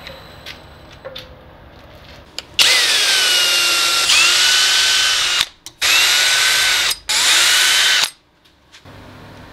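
Cordless drill boring small holes through masking tape into a wood-and-resin mug body. It runs in three bursts, its motor whine settling in pitch as each one starts, after a few light clicks of handling.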